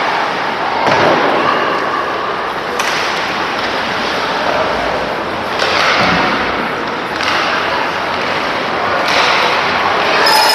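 Steady, loud crowd and hall noise, with a few dull thuds from play, one about a second in and another about six seconds in.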